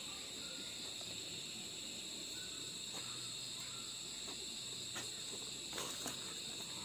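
Crickets chirring steadily, a constant high-pitched trill, with a few faint ticks near the end.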